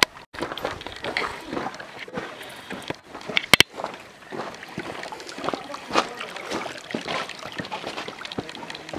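Footsteps crunching irregularly on a gravelly, rocky trail, with water trickling over the stones underfoot. A sharp double clack about three and a half seconds in.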